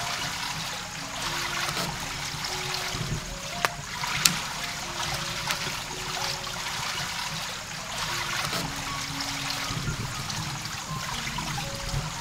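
Soft instrumental background music, a simple melody of short held notes, over a steady trickling hiss like running water. Two sharp clicks stand out about three and a half and four seconds in.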